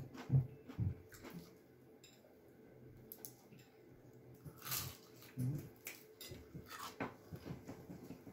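People eating fried chicken, shrimp and fries up close: quiet chewing and lip smacks, with a few brief crackly rustles.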